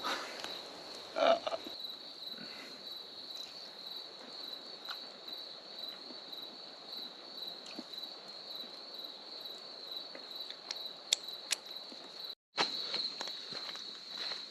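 A steady, high-pitched chorus of insects chirring with a fast pulse, with a few light clicks and taps over it. The sound drops out for a split second near the end.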